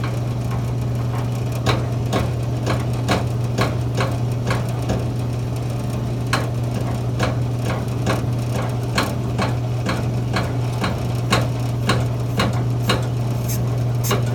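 Electric motor on a brake booster test bench running with a steady low hum, overlaid by sharp mechanical clicks about twice a second while the booster is under pressure test.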